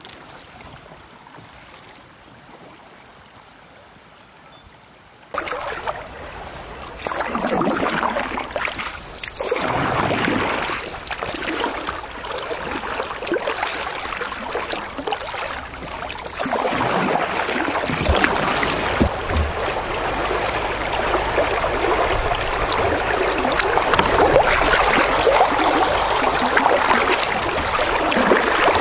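Low, quiet sound for about five seconds, then a sudden switch to the loud, steady rush of flowing river water close by, slowly getting louder.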